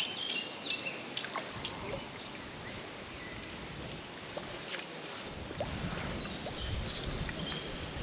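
Outdoor lakeside sound: small birds chirping, with light splashing and sloshing of water as a hooked trout is drawn into a landing net. A low rumble sets in about halfway through.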